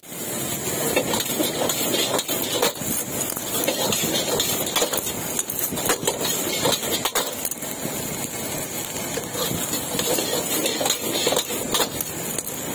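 Busy street-side din: engines running, with frequent sharp knocks and clatter at an uneven pace.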